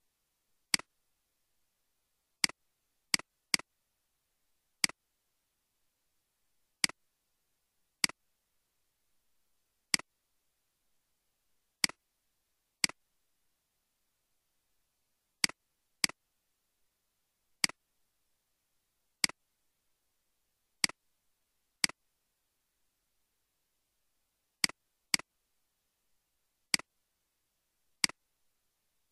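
Computer mouse clicks: about twenty single sharp clicks at irregular intervals of one to three seconds, each a loud tick followed a split second later by a softer one, with dead silence between.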